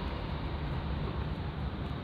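Steady city street traffic noise, a low rumble of vehicles with no single event standing out.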